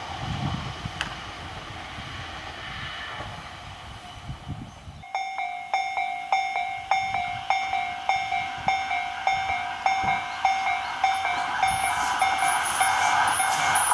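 A low rumble fades away, then about five seconds in a Japanese level-crossing electronic alarm starts ringing, an evenly repeating 'kan-kan' stroke about two to three times a second. Near the end the rushing noise of an approaching train builds under the bell.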